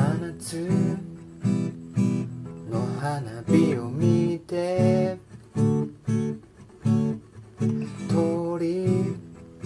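Acoustic guitar strummed in a steady rhythm, with a man singing a Japanese song over it.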